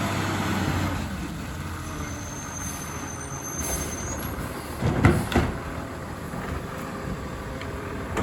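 Garbage truck running as it approaches, with a thin high squeal for a couple of seconds. About five seconds in there is a loud short burst of two or three strokes.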